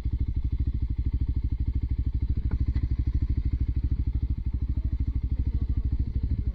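Motorcycle engine running steadily with an even, rapid pulsing beat, holding one speed.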